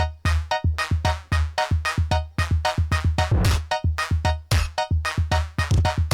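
Loud electronic DJ remix in the full-bass dugem style: a fast, chopped drum-machine beat with heavy bass under short, repeated synth stabs.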